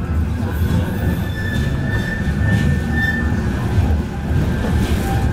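Tram running, heard from inside the passenger car: a steady low rumble, with a high, thin squeal held for about two seconds in the middle.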